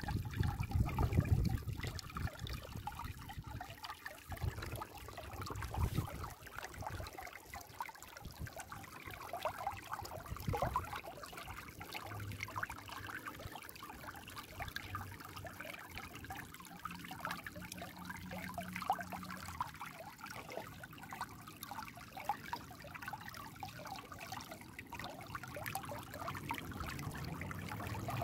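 Shallow stream trickling and babbling over stones and pebbles, a steady flickering water sound, with a low rumble in the first couple of seconds.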